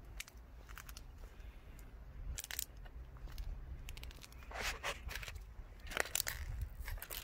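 Irregular crunching and scraping sounds, with a few louder crunches about halfway through and near the end, over a low rumble.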